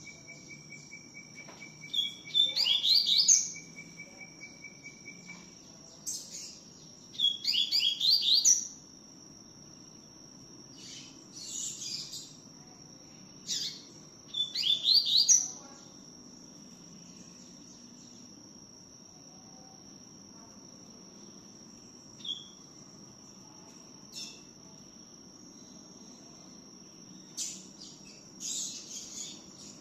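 Double-collared seedeater (coleiro) singing its 'tui tiu' song in short bursts of quick sweeping notes: three full phrases in the first half, then only scattered short notes. A steady high tone runs underneath, and a rapid faint ticking sounds for the first few seconds.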